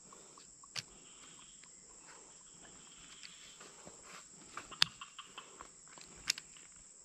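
Steady high-pitched drone of insects in the surrounding vegetation, broken by three sharp clicks, the loudest just before the end.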